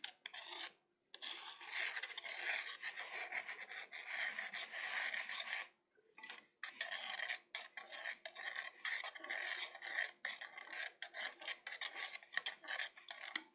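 A utensil scraping rapidly against the inside of a container, briskly stirring baking soda into hot water, with short pauses about a second in and near the middle.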